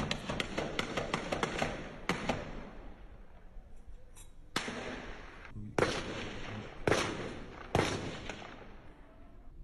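Gunfire: a rapid string of shots for about two seconds, then, after a short lull, four single shots about a second apart, each echoing.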